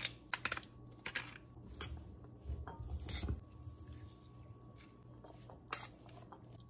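Food-preparation sounds at a stainless steel mixing bowl: a quick run of taps and clicks as a seasoning shaker is shaken over the bowl, then softer handling and a spoon clinking against the metal as the salad is stirred.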